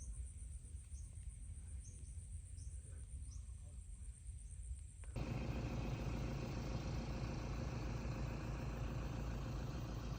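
Faint outdoor ambience: a steady high insect trill with a short chirp repeating about once a second. About halfway it cuts abruptly to a steadier low rumbling background.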